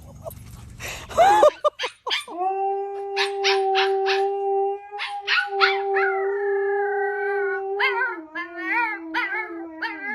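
Dog howling: one long held note, broken briefly about halfway, that wavers up and down near the end. Sharp clicks sound over the first part of the howl.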